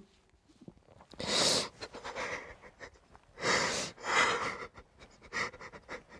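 A man sobbing with ragged, gasping breaths. The loudest come about a second in and again around three and a half to four seconds in, with smaller shaky breaths between.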